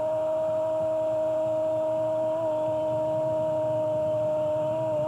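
A steady, sustained tone with overtones, holding one pitch throughout with only slight wobbles.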